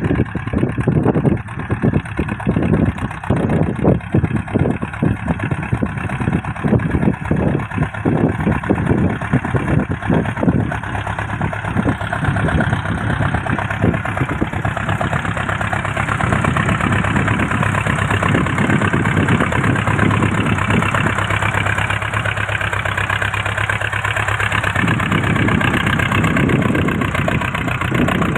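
Crawler tractor's engine running, uneven and pulsing for the first ten seconds or so, then settling into a steadier run.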